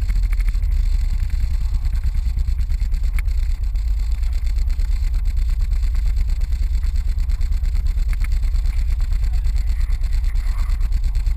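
A snekke's inboard engine running steadily, a low, rapidly pulsing engine note.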